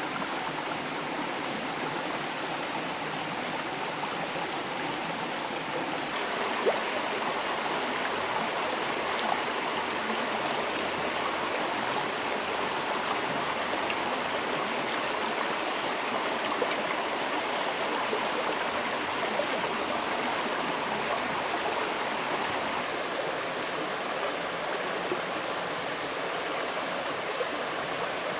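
Small stream running steadily in an even rush of water, slightly louder from about six seconds in, with a few faint knocks.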